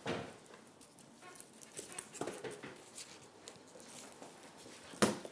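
Faint kitchen handling noises: a knock at the start, then soft rustling and scattered light taps as onions are picked up and turned in the hands, with a sharper knock near the end.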